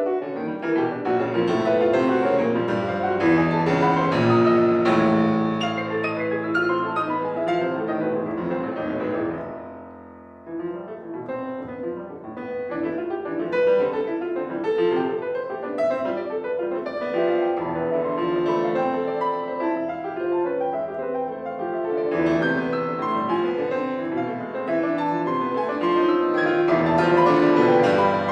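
Solo piano playing a dense passage of many sustained notes, which dies away to a soft pause about ten seconds in and then builds again.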